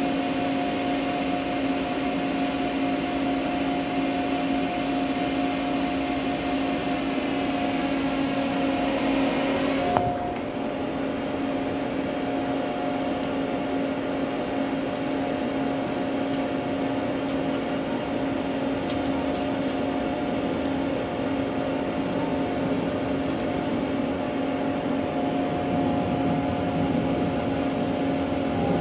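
A steady mechanical hum made of a few fixed tones, with a sharp click about ten seconds in, after which the sound is duller.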